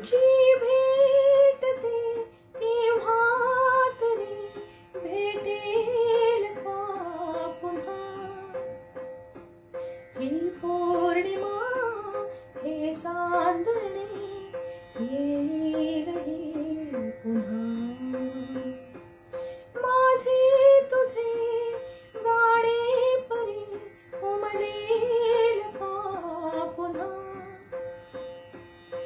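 A woman singing a Marathi song solo in phrases, over a steady instrumental accompaniment with held notes.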